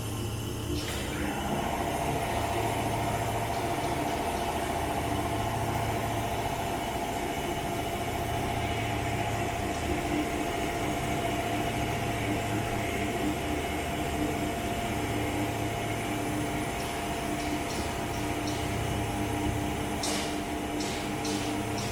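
Roller grinder machine running with a steady mechanical hum. A higher steady whine sets in about a second in, and a few short clicks come near the end.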